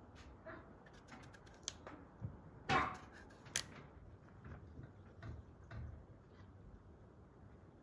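Scattered light clicks and snips from small hand cutting tools, a knife working pumpkin and then a child's garden shears, with one short louder crunch about three seconds in.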